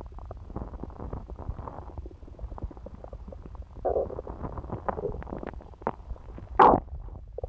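Human stomach gurgling and rumbling while digesting pizza: a steady low rumble full of small pops and bubbling, swelling about four seconds in, with one loud, brief gurgle near the end.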